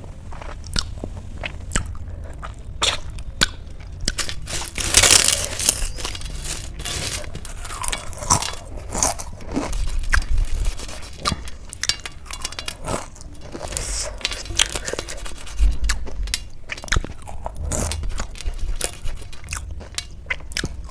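A person chewing and crunching food close to the microphone, eating a thali meal with many short crackly bites. The loudest crunch comes about five seconds in.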